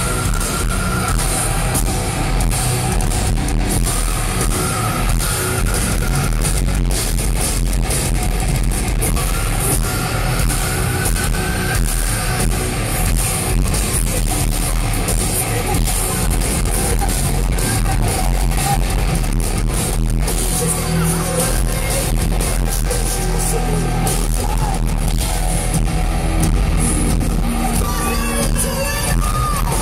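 Heavy metal band playing live, with loud guitars and a singer's voice, heard from the crowd in an arena.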